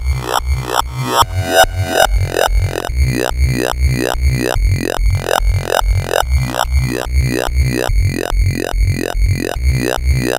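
Ableton Operator FM synth talking bass looping a pattern of short, evenly spaced notes, about three a second: a deep bass with a sweeping, wah-like upper tone on each note. The tone changes about three seconds in as the modulating oscillator is adjusted.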